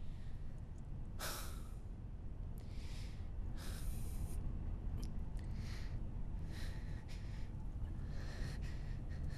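A person breathing heavily in short, sharp breaths, roughly one a second, over a steady low rumble.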